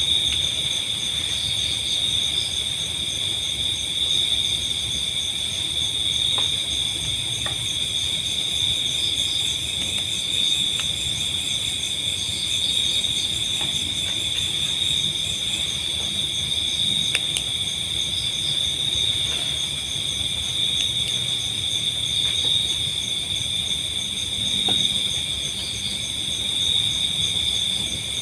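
Chorus of crickets and other insects shrilling steadily at several pitches at once, the strongest a high continuous trill. A low rumble runs underneath.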